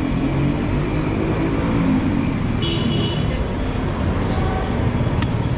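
Steady low rumble of motor vehicles running close by at a roadside fuel stop. A short high electronic beep comes about three seconds in, and a sharp click near the end.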